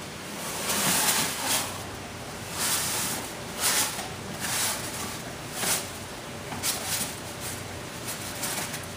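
Wet live sand being emptied from a plastic bag into a glass aquarium: the bag rustles and the sand slides out in a series of short bursts.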